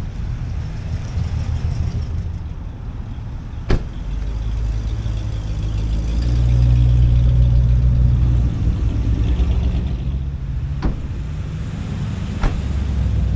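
Engines of classic American cars driving slowly past one after another, a low steady engine sound that grows louder as one car passes about six seconds in. Three sharp clicks cut through it, about four seconds in and twice near the end.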